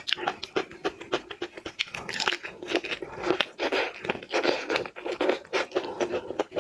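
Shrimp shells crackling and tearing as shrimp are peeled and eaten, a busy, irregular run of crisp crackles and tearing noises.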